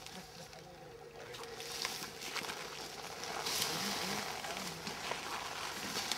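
Outdoor field sound of men guiding an elephant through brush: rustling and light crackles of undergrowth and footsteps, with faint distant men's voices about halfway through.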